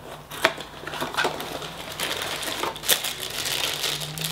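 Handling noise from a Funko Mystery Minis blind box: the small cardboard box is pulled open with a few sharp snaps. Then the foil blind bag from inside crinkles as it is handled, growing steadier toward the end.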